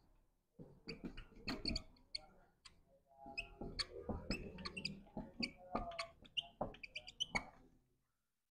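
Dry-erase marker squeaking and tapping against a whiteboard as a sentence is written, in quick, irregular short strokes. It is faint, and stops a second before the end.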